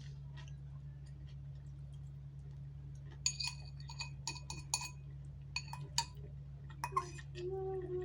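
Eating utensils clinking against a dish: a run of about a dozen sharp, ringing clinks starting about three seconds in, over a steady low hum.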